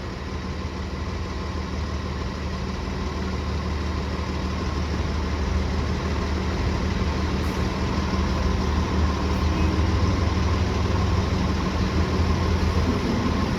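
City transit bus engine running, a steady low drone that grows gradually louder as the bus approaches.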